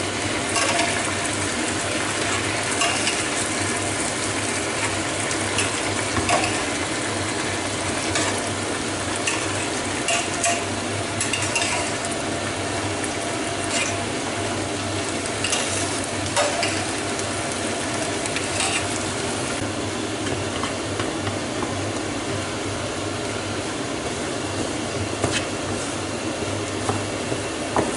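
Onion and tomato mixture sizzling in a frying pan while soaked bulgur is scraped out of a steel pot into it and stirred in with a wooden spoon, with scattered clicks and scrapes of utensils against the metal pot and pan.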